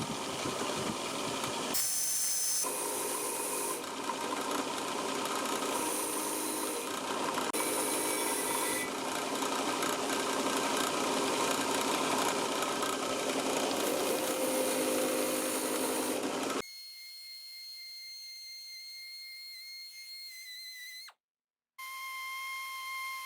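Power-driven 4-inch wire wheel spinning against steel, a harsh grinding hiss that stops about sixteen seconds in, leaving a faint steady hum.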